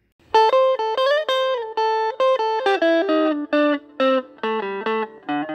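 Guitar music: a run of quick plucked notes, a few held longer and some bent upward in pitch.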